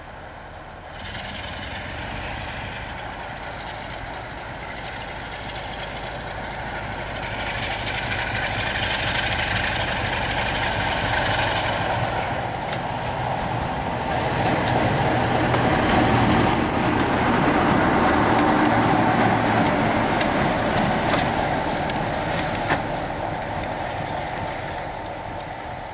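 Class 47 diesel-electric locomotive's Sulzer twin-bank V12 engine working as the locomotive approaches and passes. It grows louder to a peak past the midpoint, with a high whine for a few seconds in the first half, then fades toward the end.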